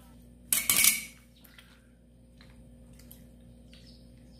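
Steel meat cleaver knocking with a brief metallic clatter about half a second in, followed by a few faint clicks as hands handle the raw chicken on its plate.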